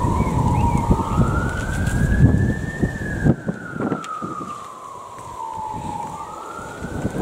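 Ambulance siren passing, a slow wail rising and falling in pitch. A low rumble underneath it stops about three seconds in.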